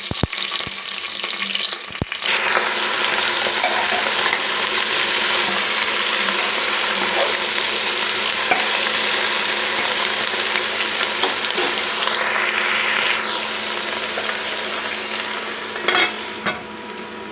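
Potato and brinjal (aubergine) pieces frying in hot oil in a pressure cooker with loud, steady sizzling that swells about two seconds in, as the vegetables go into the oil, and is stirred with a ladle. A few sharp clicks of the ladle against the pot come at the start, about two seconds in, and near the end.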